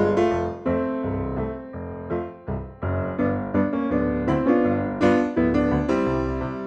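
Background music led by piano: a melody of struck notes that ring and fade, with a bass line underneath.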